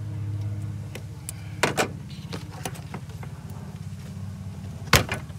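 Pliers working a hose clamp and small hose at a plastic radiator filler neck: scattered sharp clicks, two close together under two seconds in and a louder snap near the end. A steady low hum sits underneath.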